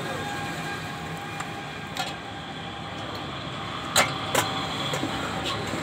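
Steady street and traffic noise with a low hum, broken by a few sharp clicks: one about two seconds in and two close together about four seconds in.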